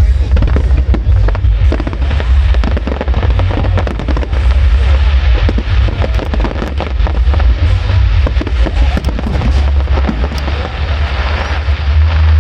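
Fireworks going off in quick, irregular succession: a dense stream of bangs and crackles, heaviest in the middle of the stretch.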